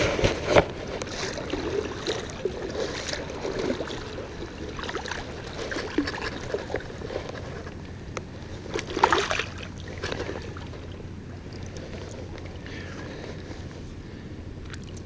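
Shallow water sloshing and splashing as a small hooked snook thrashes at the surface while it is reeled in to the angler's legs and landed by hand, with a louder splash about nine seconds in.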